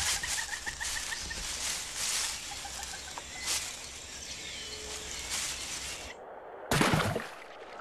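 Rainforest ambience. A rapid chattering call of quick repeated notes runs through the first second or so, over rustling and crackling in the foliage. A short, loud rushing sound comes about seven seconds in.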